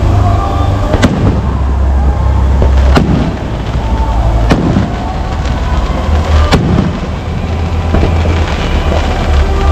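Fireworks going off: a sharp bang about every one and a half to two seconds, each with a short echoing tail, over a steady low rumble.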